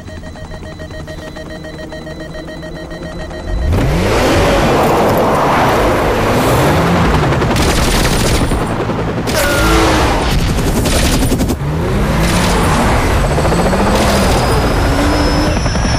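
Action-film car chase sound mix: a steady mechanical drone, then about four seconds in a sudden loud burst of a car engine revving hard up and down, with gunfire and sharp impacts over it.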